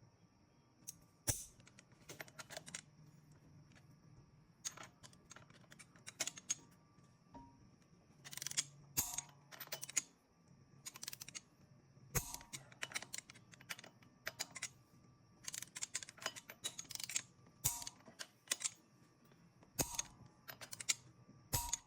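Hand ratchet and click-type torque wrench working bolts down: short runs of quick ratcheting ticks, each ended by a sharper click, repeated many times through the stretch.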